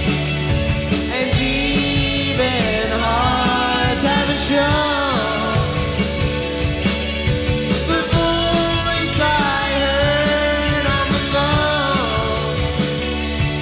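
Indie rock band playing live: two electric guitars, bass guitar and a Pearl drum kit keeping a steady beat, with a male voice singing a melodic line over them.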